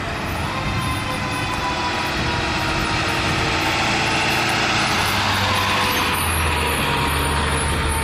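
Emergency vehicle passing close by, sounding a steady-pitched siren or horn tone whose pitch sags slightly as it goes by. Its engine rumble grows louder near the end.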